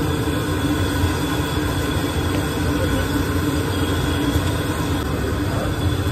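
Steady low rumble of a gas burner running under a large iron kadhai of hot oil, with a steady hum over it.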